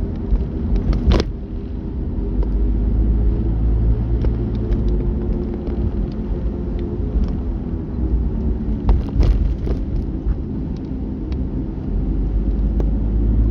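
Car driving, heard from inside the cabin: a steady low rumble of engine and road noise, with a few short sharp clicks or knocks, the clearest about a second in and about nine seconds in.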